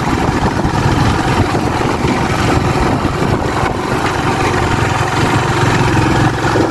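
Yamaha YBR 125's single-cylinder four-stroke engine running steadily as the motorcycle is ridden along the road.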